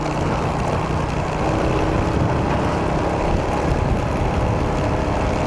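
Motorcycle riding at a steady cruise: the engine drones under a constant rush of wind and road noise.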